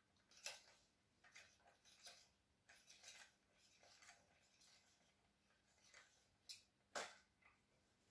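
Faint metal clicks and scrapes as a Husqvarna chainsaw's clutch is fitted by hand, with a sharper click about seven seconds in.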